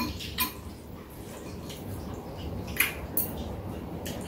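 Chopsticks clicking against bowls three times during a noodle meal, over a steady hiss of heavy rain.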